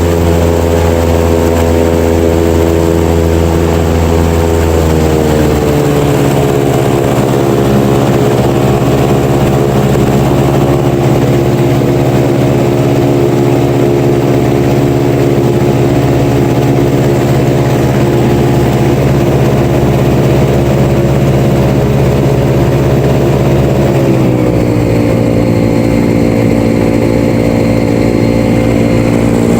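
Airboat engine and its big air propeller running loud and steady at cruise, picking up speed in two steps, about five seconds in and again near the end.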